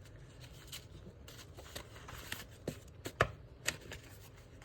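Sheets of scrapbook paper being handled and shuffled on a desk, with a scatter of short rustles and light taps, the loudest about three seconds in.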